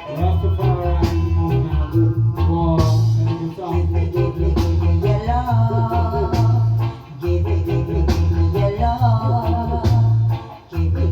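Reggae band playing an instrumental passage: a heavy repeating bass line under guitar and other instruments, with a steady drum beat.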